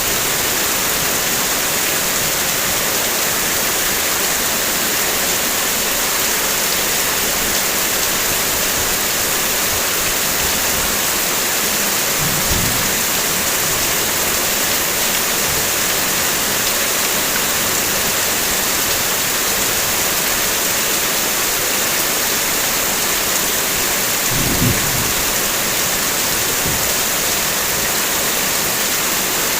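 Heavy rain falling steadily: a dense, even hiss. Two brief low thumps break through, about twelve and twenty-four seconds in.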